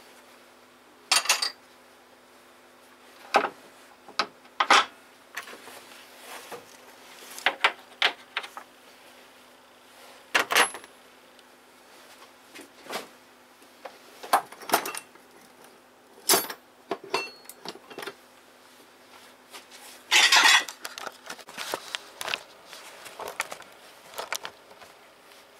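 Irregular metallic clinks and clatters of hand tools and metal engine parts being handled and set down, about fifteen in all, with a longer clatter about 20 seconds in, over a steady low hum.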